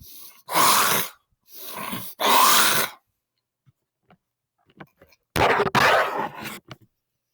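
Loud, raspy bursts of breath and throat noise from a man: three short ones in the first three seconds, then a longer one about five and a half seconds in.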